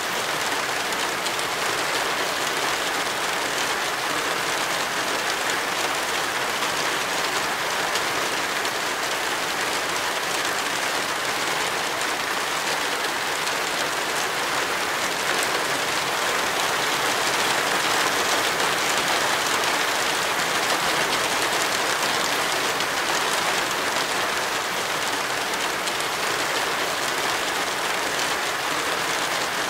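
Heavy rain falling steadily: a dense, even hiss with no letup.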